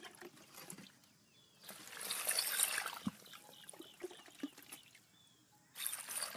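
Water poured from a plastic container into a metal bowl of dried bean curd sheets and shiitake mushrooms, splashing and hissing for a second or so about two seconds in and again from near the end.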